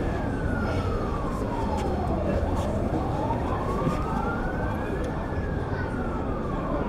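A siren wailing slowly, one tone sliding down in pitch over about two and a half seconds, climbing back up, then starting down again near the end, over a low steady rumble.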